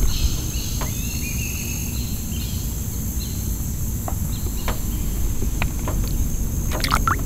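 Swamp ambience: a steady high insect drone, a few bird chirps in the first two seconds, and a low rumble underneath, with a few light clicks near the end.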